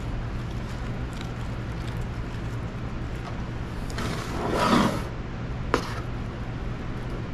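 Metal offset spatula spreading thick chocolate icing across a cake in a metal sheet pan, with a louder scrape lasting about a second some four seconds in and a sharp click near six seconds. A steady low hum runs underneath.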